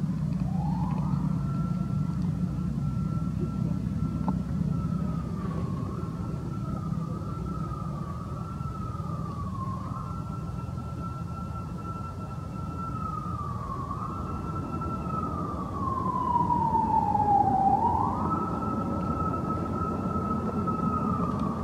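A distant siren wailing: one long continuous tone that rises quickly, holds high with a few small dips, slides slowly down about three quarters of the way through, then climbs back up. A steady low rumble runs underneath.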